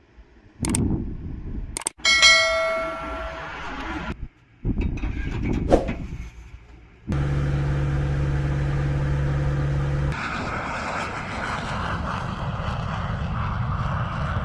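Military airfield sounds in quick cuts: a metallic clang that rings out about two seconds in, a steady low engine hum from about seven seconds, then the steady rushing noise of a jet aircraft's engines from about ten seconds on.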